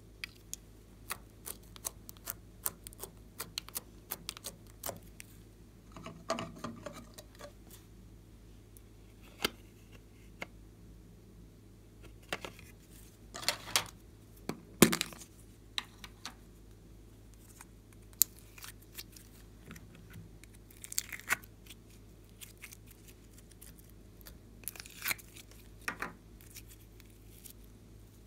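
Small plastic bottles and a lidded plastic tub being handled and opened: scattered sharp clicks and taps. The loudest cluster comes about halfway through, when the tub is opened.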